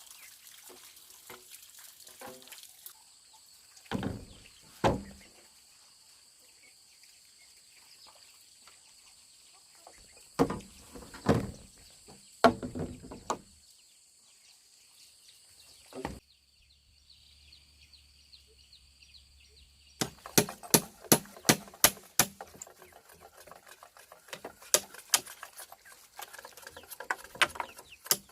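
Scattered knocks and strikes, each with a short ring, then a fast, uneven run of sharp taps and clicks through the last eight seconds, over a faint steady high drone of insects.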